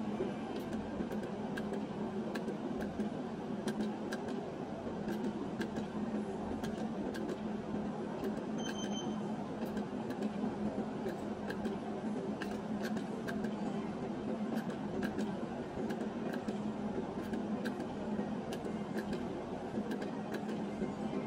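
Steady background noise around a bar video slot machine: a constant low hum with many faint clicks scattered throughout and a short beep about nine seconds in.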